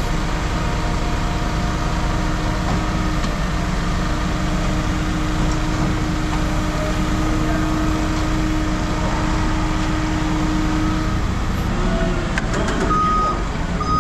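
A heavy diesel machine, most likely the yard's loader or lifting machine, runs steadily with a deep rumble. A reversing alarm starts beeping near the end.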